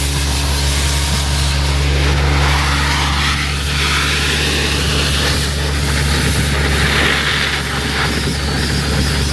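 Guzzcavator vacuum excavator running: a steady low engine drone under a rushing hiss of suction, the hiss growing stronger in the middle.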